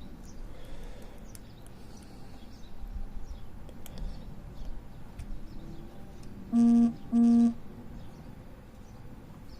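Faint ticking and scraping of lock picks working the discs of a Bumper disc brake lock. About six and a half seconds in come two loud, short beeps, each about half a second long, one right after the other.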